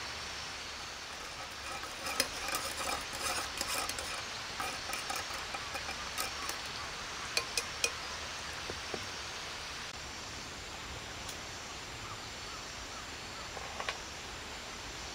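A spoon stirring milky coffee in a metal camp mug, clinking against the sides for a few seconds, then three quick sharp clicks about halfway through. A steady background hiss runs underneath.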